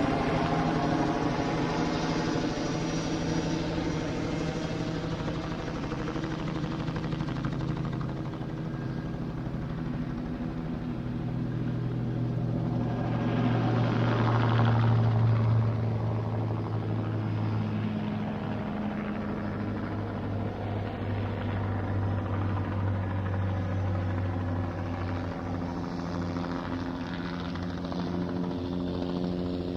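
Police helicopter flying overhead: a steady rotor and engine drone that grows louder about halfway through as it comes closer, then eases back.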